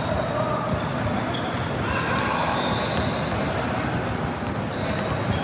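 Basketball game play: sneakers squeaking on a hardwood gym floor and a basketball bouncing, over a bed of background voices.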